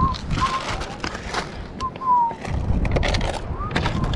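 Hand-handling noise of a plastic bag and plastic water bottles being shoved into a rock crevice: quick rustles, scrapes and knocks against the stone. A few short, high whistle-like chirps sound through it, one gliding down about two seconds in.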